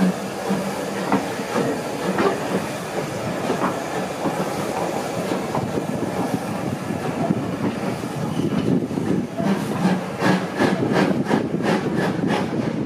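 Coach wheels rolling on the rails as the train pulls away slowly, with a steady rumble. About eight seconds in, a quick run of clicks and clatter begins as the wheels cross pointwork.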